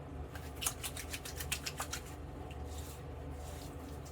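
A quick run of light, faint taps, about five or six a second for under two seconds, from hands patting witch hazel onto freshly shaved skin.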